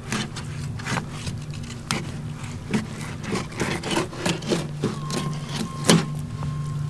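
Fillet knife sawing through a speckled trout's ribs and flesh and scraping on the cleaning table, in quick repeated strokes, with one sharper click about six seconds in.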